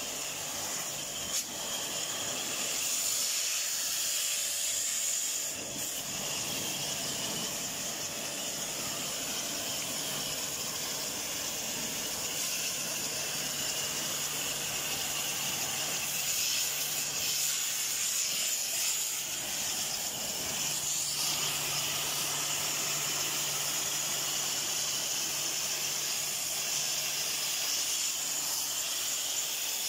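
Steady hiss of a water jet from a spray gun blasting the finned evaporator coil of a wall-type air-conditioner indoor unit as it is washed. A faint low hum joins about halfway through.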